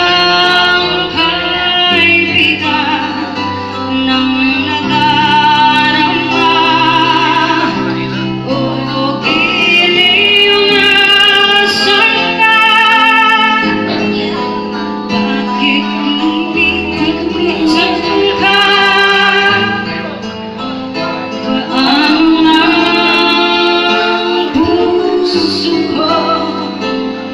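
A woman singing a song into a microphone, amplified, over instrumental accompaniment.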